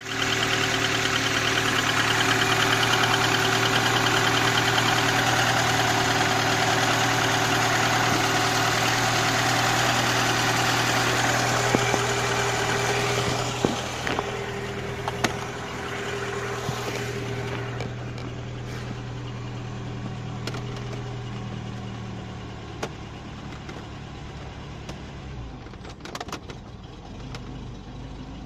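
IZh-2126 Oda's engine running cold after standing, with the knock the owner hears on cold-morning starts; its cause is unknown to him. The engine is loud at first and settles noticeably quieter about halfway through, with a few sharp clicks standing out.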